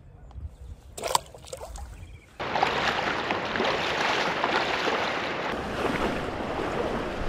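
Shallow river water splashing and rushing as a person wades through it beside a kayak, starting abruptly about two and a half seconds in. Before that it is fairly quiet, with a single knock about a second in.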